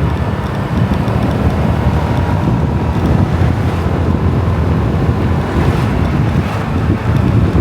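Loud, steady rumbling of wind buffeting the microphone.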